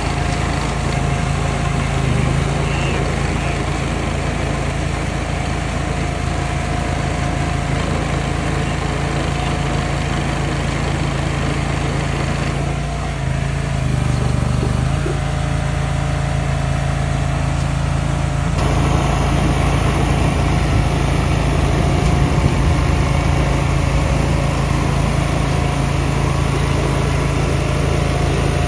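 Engines of concrete-pour machinery running steadily with a constant low hum. The tone shifts abruptly about two-thirds of the way through.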